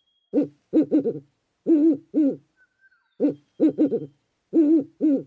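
An owl hooting: short pitched hoots in quick runs of two or three, repeating about every second.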